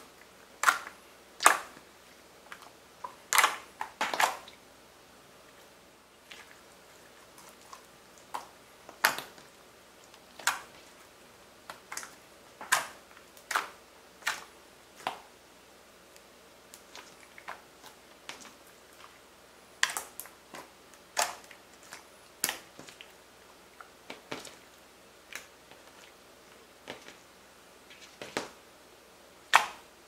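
Clear, glossy light-blue slime being pressed and stretched by hand, giving off irregular sharp clicks and pops. They come thick in the first few seconds, thin out for a few seconds, then return scattered.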